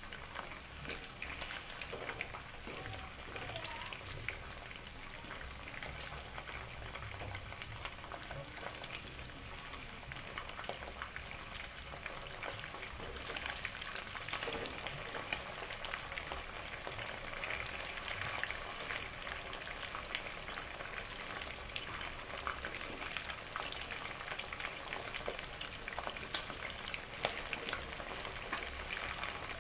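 Pre-cooked spiced chicken pieces frying in hot oil in a wok: a steady sizzle and crackle with scattered sharper pops, as the pieces cook to a golden brown while a wooden spatula turns them.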